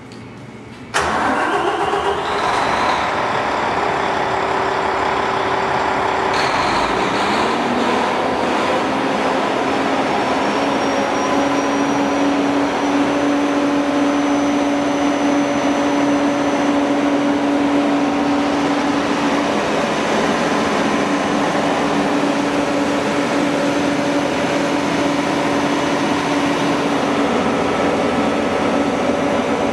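Volvo TAD1363VE inline six-cylinder diesel engine of a 240 kW standby generator starting suddenly about a second in. Its pitch rises briefly around seven seconds in, then it runs steadily at speed with a constant hum.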